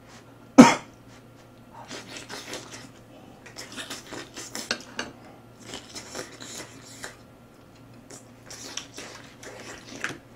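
Close-up eating sounds: chopsticks clacking against dishes and chewing of grilled beef. One sharp, loud clack about half a second in, then a run of small irregular clicks and crackles.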